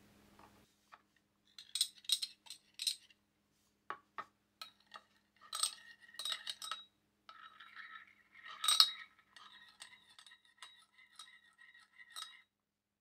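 Metal spoon clinking and scraping against a small ceramic bowl while stirring instant coffee into hot water. Irregular light taps, each with a brief ringing tone, the sharpest about nine seconds in.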